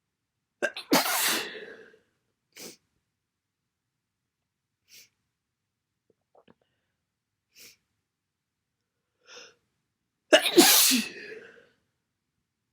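A person with a cold sneezing twice: two massive, wet sneezes, one about a second in and one near the end, with a few brief, much quieter sounds between them.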